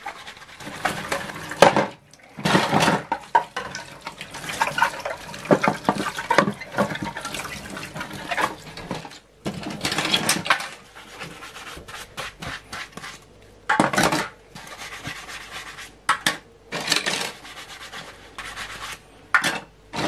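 Plastic PC case parts being scrubbed with a soapy sponge and handled in a stainless steel sink: the sponge rubs, and the plastic pieces clatter irregularly against each other and the steel.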